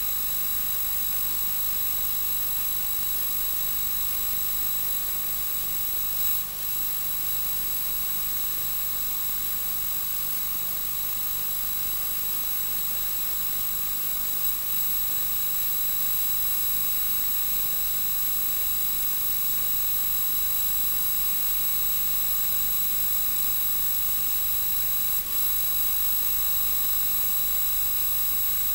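Steady mechanical whir and hiss with a thin high-pitched whine and a low hum, unchanging throughout: the running noise of a film projector playing back silent Super 8 home-movie footage.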